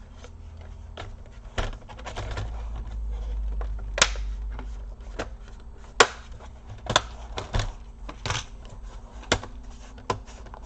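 Plastic upper casing of an Acer Aspire 5738 laptop being fitted and pressed down onto the base: a string of irregular sharp clicks and taps, over a low handling rumble in the first half.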